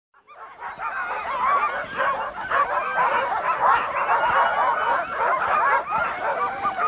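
A large pack of sled huskies yelping and barking all at once, many overlapping voices in an excited din. The sound fades in during the first half second and then holds steady.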